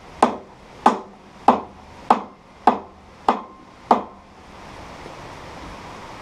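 Hand hammer striking the wooden shipping crate: seven sharp, evenly spaced blows a little over half a second apart, stopping about four seconds in, followed by a steady hiss.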